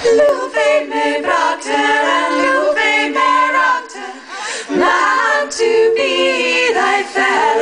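An all-female vocal ensemble singing unaccompanied in several-part harmony, in a medieval style, with a short break in the singing about halfway.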